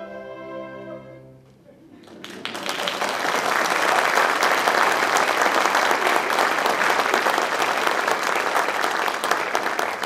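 An orchestra's closing chord dies away, and about two seconds in an audience breaks into sustained applause that stays loud.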